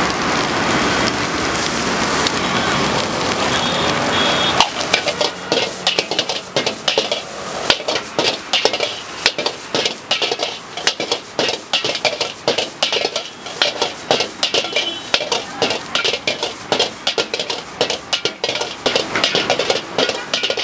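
Egg fried rice sizzling in a large wok over a gas burner. From about five seconds in, a metal ladle clangs and scrapes against the wok rapidly and repeatedly as the rice is stir-fried and tossed.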